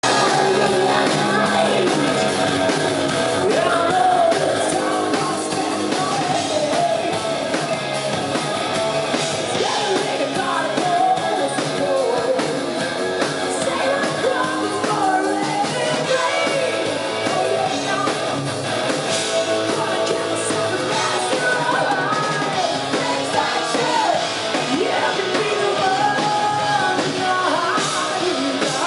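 All-female hard rock band playing live: electric guitars, bass guitar and a drum kit, with a woman singing at full voice over them, loud and without a break.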